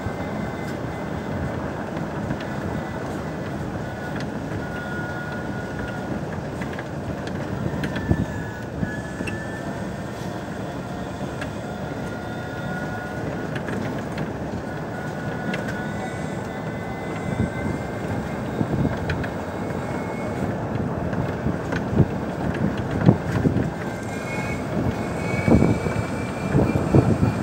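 Riding in an open golf buggy on a paved path: steady rumble and rattle of the tyres and cart, with a faint high whine that drifts up and down in pitch. Sharper knocks and bumps come more often in the last several seconds.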